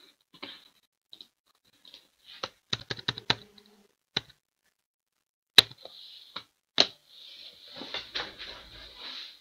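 Hands handling a trading-card box and its packaging on a table: a quick run of clicks and taps, a few sharper knocks, then rustling near the end.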